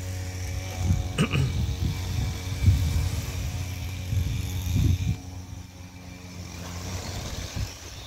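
A steady low motor drone with a fixed pitch, under irregular low thumps for the first five seconds or so, after which it goes on a little quieter.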